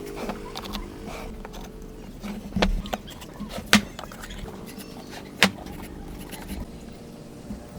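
Three sharp knocks a second or two apart, from hand-tool woodworking on timber, over a faint steady hum.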